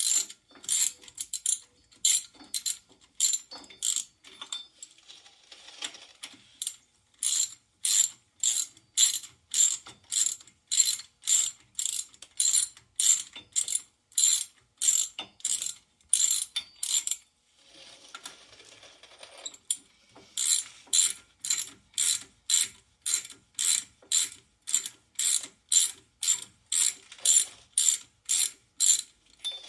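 Hand ratchet with a 3/4-inch socket clicking in quick repeated strokes, about two a second, as lug nuts are run down snug onto a wheel spacer's studs, with a pause of about two seconds a little past the middle.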